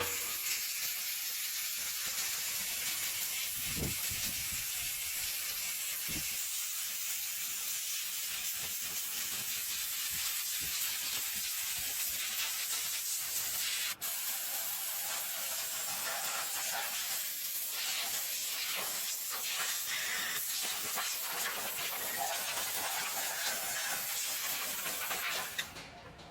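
Steady high-pitched hiss of spray or escaping air, with a momentary break about halfway through; it stops shortly before the end.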